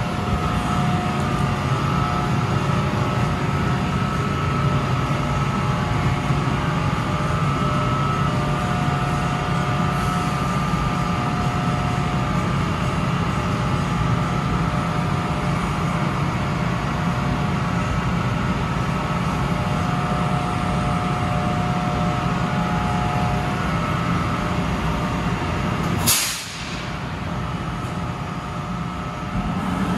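NJ Transit electric locomotive standing under the overhead wire, running with a steady machine hum and a few steady tones. About 26 seconds in there is a short, sharp burst of air; the hum is lower for a few seconds after it, then picks up again near the end.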